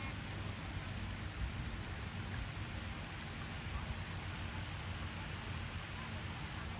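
Steady outdoor background noise with a low rumble and hum, with faint short bird chirps coming every second or so.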